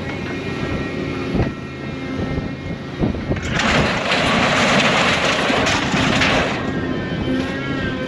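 Diesel engine of a scrap-handling machine running steadily under load, with a couple of short knocks in the first half. For about three seconds in the middle, scrap metal clatters and grinds as the orange-peel grapple digs into the pile.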